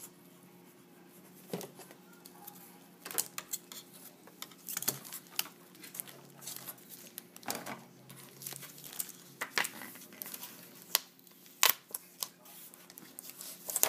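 Cardboard and plastic packaging being handled: an irregular run of sharp clicks, crackles and rustles over a faint steady hum.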